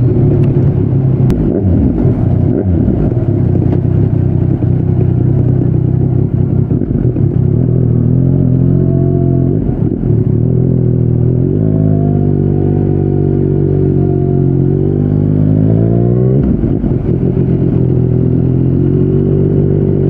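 Yamaha MT-09's inline three-cylinder engine running through a Yoshimura R55 slip-on exhaust while riding. It holds a steady note at first. About twelve seconds in, the pitch climbs and holds higher. A little past sixteen seconds it drops suddenly, then climbs again near the end.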